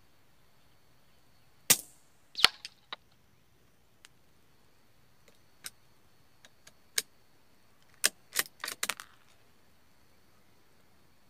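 A .22 LR rifle shot about two seconds in, followed by sharp metallic clicks of the rifle's action being worked, then a quick cluster of clicks near the end.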